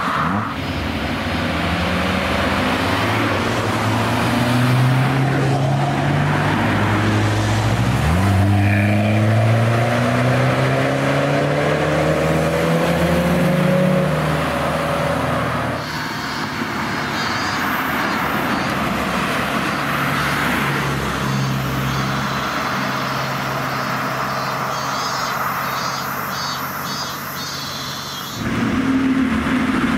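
Several cars' engines and exhausts in turn, each driving past and accelerating. In the first half, an engine note climbs steadily in pitch for several seconds at a time. The later part is a steadier, lower engine sound.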